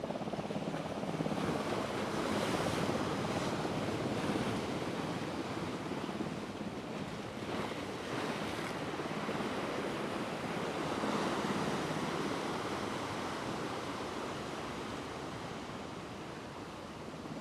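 Rough ocean surf breaking and washing against a rock jetty, a continuous rushing wash that swells and eases as the waves come in.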